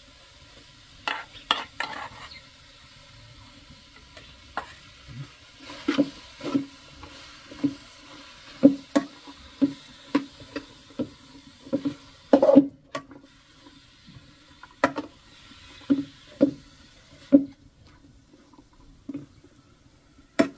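A perforated steel ladle stirs and scrapes chopped onions and green peppers around a steel wok, knocking against the metal in irregular strokes about once a second, over a faint sizzle of the vegetables frying. The loudest knock comes a little past halfway.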